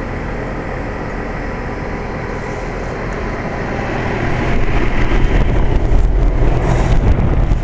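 1998 Trane XL1800 5-ton heat pump condensing unit running in cooling mode: the condenser fan blowing and the reciprocating compressor humming steadily. It grows louder, with a heavier low rumble, from about halfway through.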